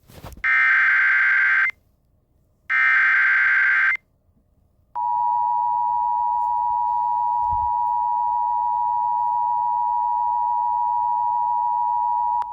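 Emergency Alert System SAME header data bursts: two harsh, screeching digital bursts of about a second each, with a second's pause between them, encoding the Special Marine Warning's details. About five seconds in, the EAS two-tone attention signal starts, a steady, dissonant pair of tones that lasts about seven and a half seconds and alerts listeners that an emergency message follows.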